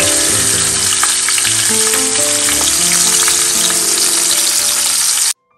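Fish frying in hot oil: a loud, steady sizzle with frequent crackling pops, cut off abruptly near the end.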